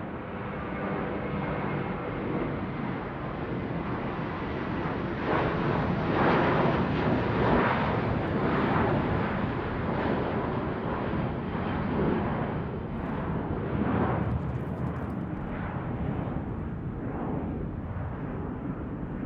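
Airplane passing overhead: a broad rumble that swells to its loudest about six to eight seconds in, then slowly fades.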